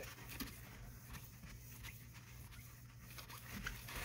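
Quiet room tone: a low steady hum with a few faint, light clicks.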